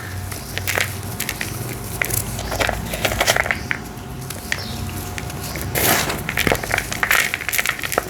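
Dried red brick-dirt shapes being crumbled: irregular crunching and crackling, with denser crunches about three seconds in and again near six seconds.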